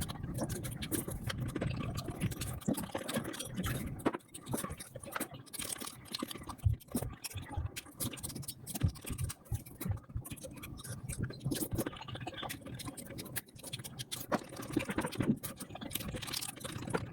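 Close-miked eating sounds sped up about five times: chewing, smacking and crunching run together into a dense, rapid stream of clicks and crackles.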